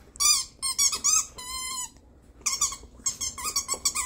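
Rubber squeaky toy squeaking over and over as a puppy bites and chews it: quick runs of short high squeaks, one longer drawn-out squeak about a second and a half in, then a fast flurry of squeaks near the end.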